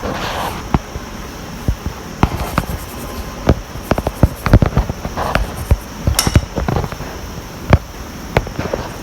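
Hand tools clicking and knocking on metal during motorcycle service work: many sharp, irregular clicks, with a few short scraping sounds in between.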